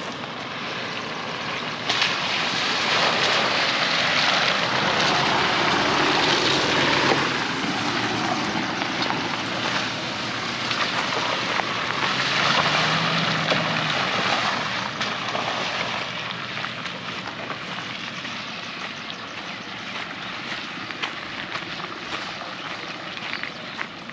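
Toyota Hilux pickup with its 2.8-litre four-cylinder turbo-diesel driving past on a gravel and dirt track: engine and tyres on stones, with wind on the microphone. It is loudest through the first half as it comes up and passes, then fades as the truck drives away.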